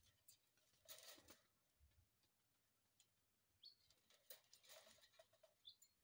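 Faint clicking and scrabbling of parrots climbing on the wire bars of their cage, in a couple of short bouts.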